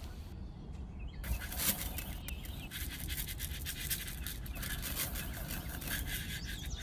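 Faint scratchy rustling and ticking of seeds sprinkled by hand onto dry sand, with birds calling in the background.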